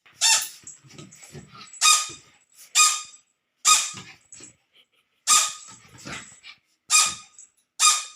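Dog barking repeatedly in sharp, high-pitched barks, about seven of them at roughly one-second intervals, with softer low sounds between the barks.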